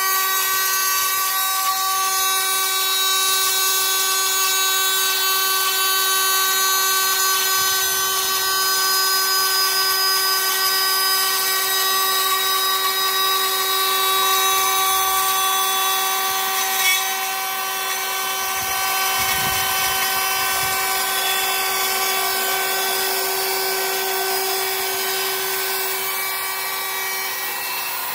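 CNC router's high-speed spindle milling a lock slot into an aluminium door profile: a steady high-pitched whine of several tones over a hiss of cutting and coolant spray. There is one short sharp knock about 17 seconds in.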